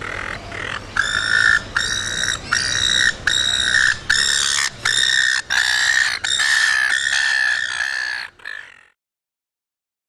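Silver gull calling: about a dozen calls in quick succession, each about half a second long on one steady pitch. The calling cuts off suddenly near the end.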